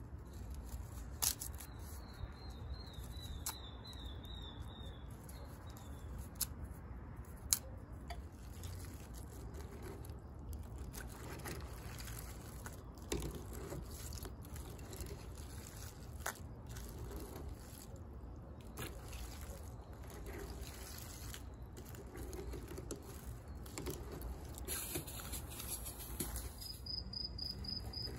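Crawfish and broth sloshing quietly in a pot as they are stirred and turned with a wire-mesh skimmer and tongs, with a few sharp clinks of the metal utensils against the pot. A cricket starts chirping near the end.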